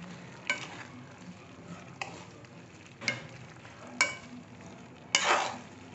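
Steel spoon stirring raw mango pieces in oil in a metal kadai, knocking against the pan about five times, roughly once a second, with a brief metallic ring. The last stroke, near the end, is a longer scrape. Between the knocks the oil sizzles faintly.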